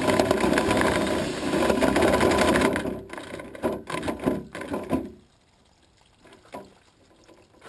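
Drill spinning a dryer-vent brush on its rods inside the vent duct, a loud steady rattling for about three seconds, then stopping and starting in short jerks before it goes quiet about five seconds in.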